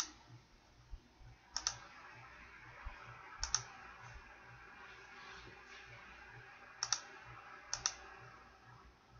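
Computer mouse clicking: single clicks at the start and about a second and a half in, then three quick double clicks spread over the following seconds.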